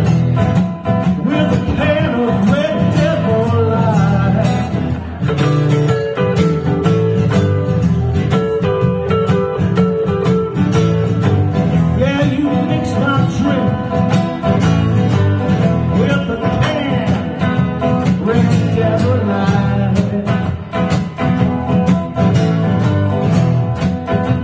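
Electric guitar through a small amplifier and an acoustic guitar playing a blues together, with continuous strummed and picked notes and some bending notes.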